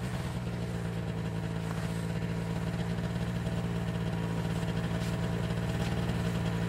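An engine idling steadily, giving an even low hum that holds at one pitch.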